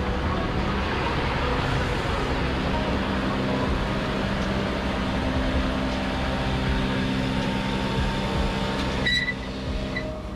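Ty2-911, a Ty2-class 2-10-0 steam locomotive, standing with a steady loud hiss of steam and a low hum from its running machinery; the hiss cuts off abruptly about nine seconds in.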